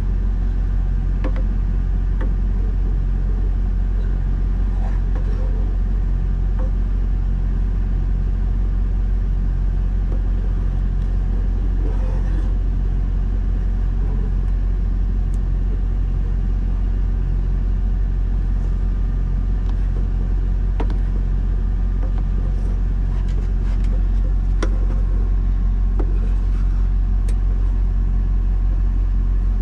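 Steady low hum of a semi-truck's diesel engine idling, heard from inside the cab. A spoon scraping and tapping in a metal saucepan makes occasional light clicks.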